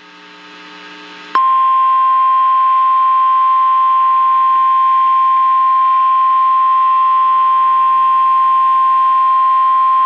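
NOAA Weather Radio warning alarm tone: a single loud, steady 1050 Hz tone that starts abruptly about a second and a half in and holds for about nine seconds. It alerts listeners that a warning message follows, here a severe thunderstorm warning.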